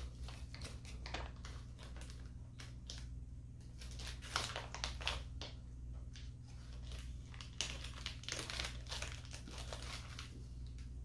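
Clear plastic packaging bag crinkling and rustling as it is handled and pulled open, in irregular bursts that are thickest about four seconds in and again about eight seconds in.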